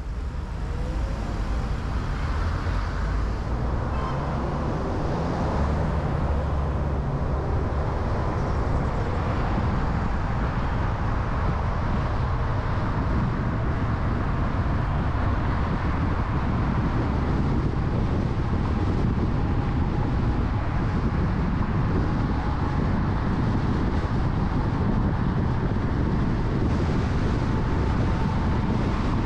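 City street ambience: steady traffic noise with a strong low rumble.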